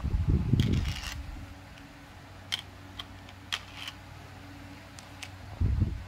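A handful of sharp plastic clicks and clacks as small toy cars are set onto and slid along a plastic toy car-carrier's deck, with dull low bumps of handling at the start and near the end.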